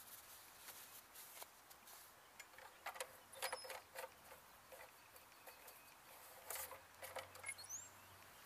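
Faint clicks and scrapes of a lawn tractor engine's yellow dipstick cap being threaded into the oil fill tube to check the level and then unscrewed and pulled out, in two short clusters about three and six and a half seconds in.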